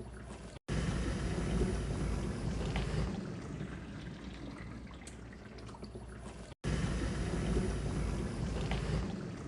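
Washing appliance running its wash cycle: water spraying and sloshing over a low motor rumble. It cuts out for an instant about half a second in and again about six seconds later, each time coming back louder and easing off over a few seconds.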